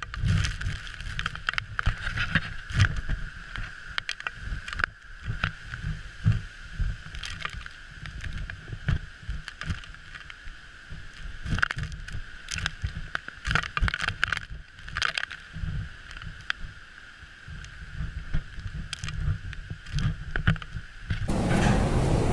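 Storm wind and heavy seas heard from a ship's deck, with the wind buffeting the microphone in irregular gusts. Near the end it cuts to a louder, steady rush of wind and breaking sea.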